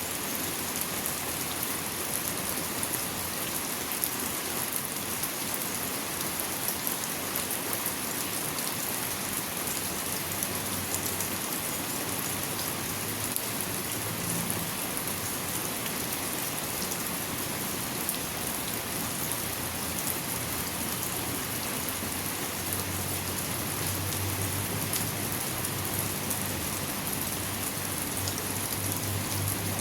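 Steady rain falling, a dense even hiss with fine drop patter. A low hum comes in faintly underneath about two-thirds of the way through.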